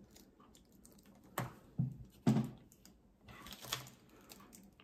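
Hand-handling noises of small hard camera parts and packaging: three sharp clicks and knocks in the first half, the third the loudest, then a short rustle.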